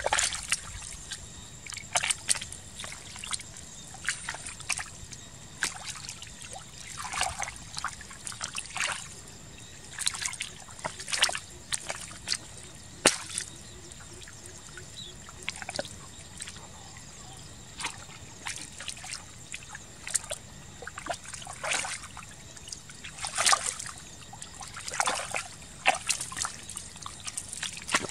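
Wet mud and muddy water squelching and sloshing as hands and bare feet work through a shallow mud-filled ditch, in irregular short splashes.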